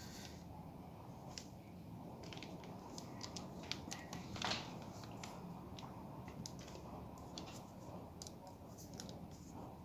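Faint, scattered clicks and taps of small plastic air-vent louvre slats being handled and fitted together, with one slightly louder brief scrape about halfway through.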